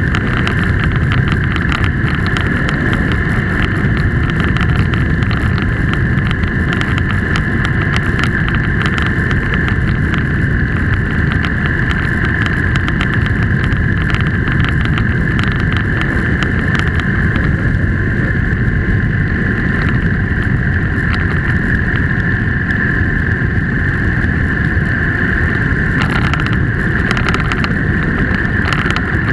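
A vehicle driving steadily along a road: continuous engine and tyre rumble with a constant high whine running through it.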